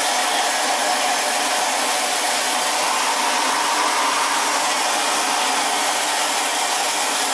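Steady, loud rush of steam hiss and machinery noise inside the cab of coal-fired steam locomotive Milwaukee Road 261, with a faint low hum underneath, unchanging throughout.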